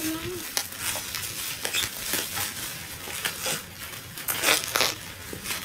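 Plastic bubble wrap being pulled off a cardboard box and crumpled by hand, crinkling and crackling in irregular bursts. The loudest bunch of crackles comes near the end.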